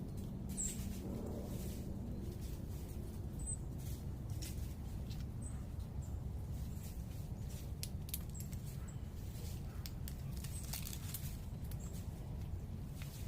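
Steady low city background rumble with scattered short, very high bird chip notes and a few faint ticks.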